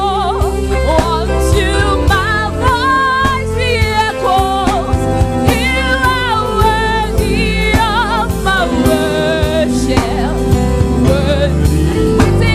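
Gospel worship music: sung vocal lines with wide vibrato over a band's steady low accompaniment.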